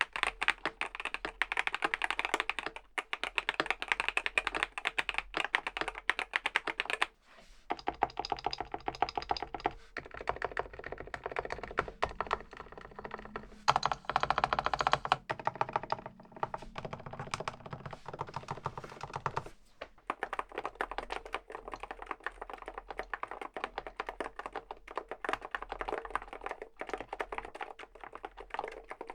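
Continuous typing on a Groovestone GS-series mechanical keyboard with Haneul switches, a rapid run of key clicks. About seven seconds in, the typing breaks off and continues on a board with silent Haneul switches, which changes the sound of the keystrokes.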